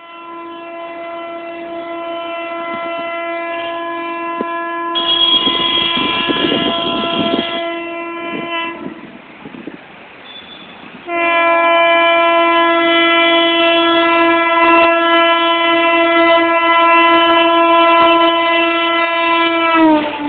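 Air horn of a WAM-4 electric locomotive sounding two long blasts as the express approaches, with the noise of the oncoming train growing under the first. The second blast drops in pitch near the end as the locomotive passes close by.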